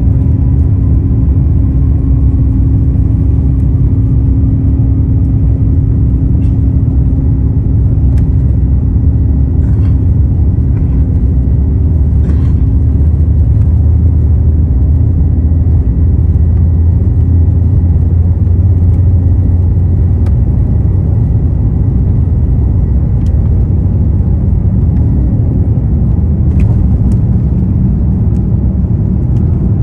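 Airbus A350-900's Rolls-Royce Trent XWB engines at takeoff power, heard from inside the cabin during the takeoff roll: a loud, steady, deep rumble of engines and wheels on the runway as the jet accelerates, with a faint rising whine in the first few seconds and scattered clicks and knocks. The nose rotates for liftoff near the end.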